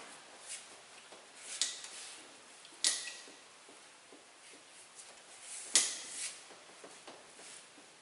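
A whiteboard being wiped with a hand-held duster: a few sharp knocks and short scrapes of the duster against the board at irregular intervals, with fainter taps between them, the loudest about three-quarters of the way through.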